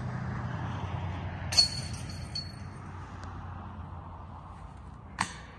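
A putted disc hits a metal disc golf basket about a second and a half in: a sharp metallic clank with the chains ringing briefly. Near the end there is a second, shorter knock.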